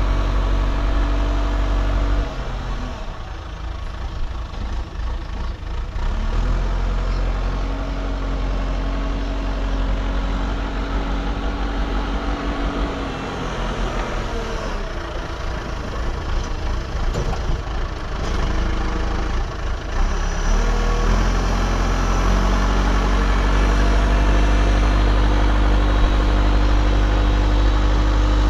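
Diesel engine of an earthmoving machine running under varying load, its note and level dipping and recovering a few times.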